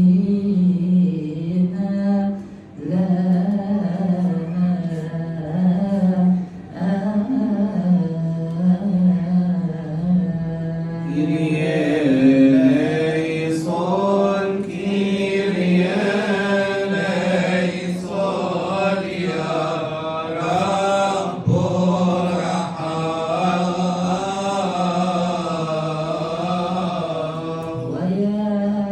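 Coptic liturgical chant: a long, drawn-out melodic passage sung without distinct words over a steady low drone. About eleven seconds in, a brighter, more ornate melodic line comes in.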